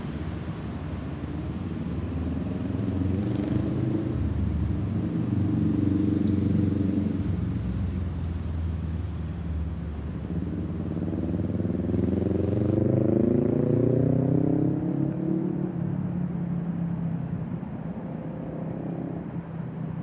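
Boeing 737-800 jet airliner's CFM56-7B turbofans rumbling as it passes high overhead. It is a steady low roar with slowly sweeping tones that swells about a third of the way in and again past the middle.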